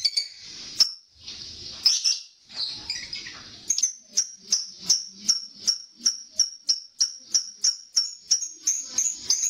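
Lovebird calling: a few scattered squawks, then from about four seconds in a long run of sharp, evenly spaced chirps, about three a second.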